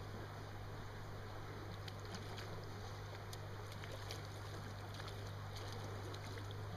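Small stream's water flowing steadily, with a steady low hum underneath.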